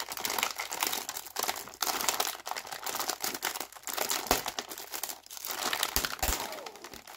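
Shiny plastic wrapper of a pack of Oreo sandwich cookies crinkling as its resealable top flap is peeled back by hand, a dense irregular crackle.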